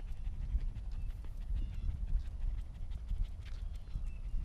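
Dachshund panting as it trots along on a leash, over a steady low rumble.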